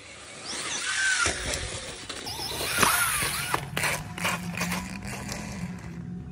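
Losi Promoto-MX electric RC motorcycle running, its motor whine swooping up and down in pitch with the throttle, with a cluster of mechanical clicks from the chain drive in the middle and a steady low hum from about halfway on.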